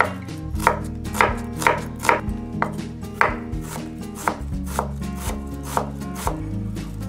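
Chef's knife finely slicing an onion on a wooden cutting board, the blade knocking on the board about twice a second, over soft background music.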